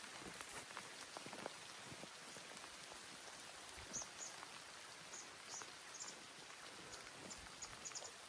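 Light rain falling, a steady faint patter with scattered drop ticks. A few faint, short high chirps come in the second half.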